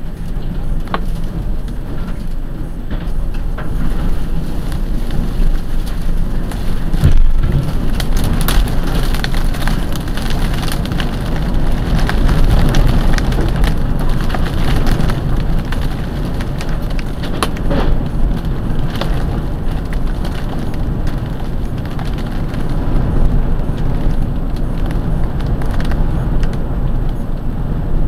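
Tornado-storm wind buffeting a parked car, heard from inside through the dash cam, with rain and debris pelting the body and glass in a constant patter of sharp hits. The wind swells and eases in gusts, loudest about seven seconds in and again around twelve and seventeen seconds.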